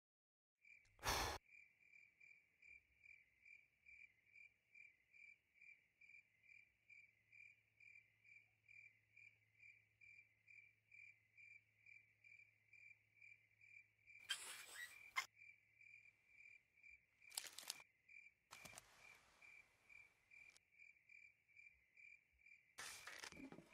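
A faint cricket chirping steadily, about two chirps a second. A sharp click comes about a second in, and a few more clicks and short hisses follow in the second half.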